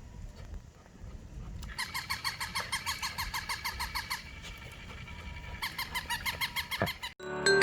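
Toy Shiba Inu sounding off: a rapid run of high, even, chirping yips, about eight a second, in two bursts. Music begins just before the end.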